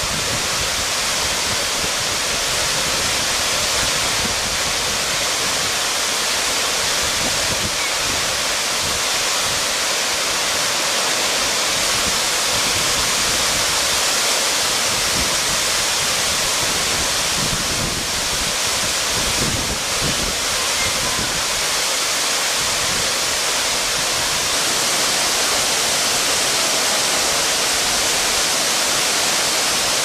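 Tall waterfall pouring down rock slabs into its plunge pool: a steady, even rush of falling water.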